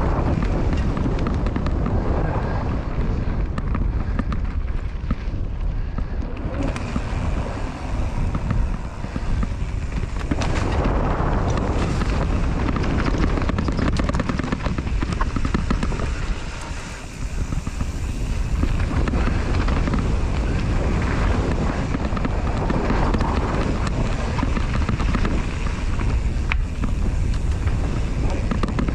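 Wind buffeting the camera microphone over the sound of a mountain bike descending a dirt singletrack: a steady low rumble of tyres on dirt with constant small rattles and clicks from the bike over bumps. The noise eases briefly a little past halfway, then picks up again.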